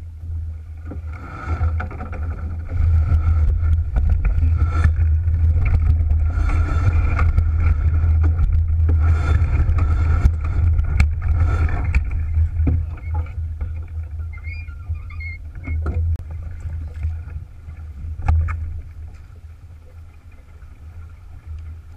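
Wind buffeting the camera microphone and water rushing along the hull of an Alberg 30 sailboat heeled under sail. It is loudest for the first half and eases off after about 18 seconds, with a few sharp knocks.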